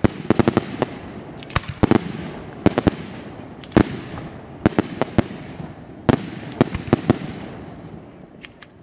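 Daylight aerial fireworks: a rapid, irregular series of shell bursts. The sharp bangs come in clusters about every second, each trailing off in echo, and thin out near the end.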